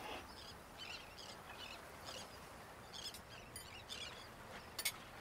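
Faint birdsong: small birds chirping in short, repeated twittering calls, with two sharp clicks near the end.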